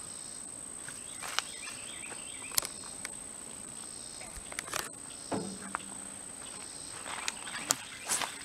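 Steady high-pitched drone of insects calling, with a few sharp clicks and knocks scattered through it.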